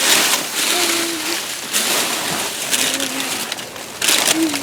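Rummaging through trash in a dumpster: uneven rustling and crunching of bags and packaging, with a few short squeaks, loudest in the last half-second.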